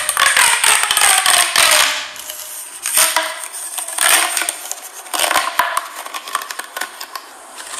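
Fidget toys being handled, a dense run of rapid clicking and rattling for the first two seconds, then shorter bursts of clicks.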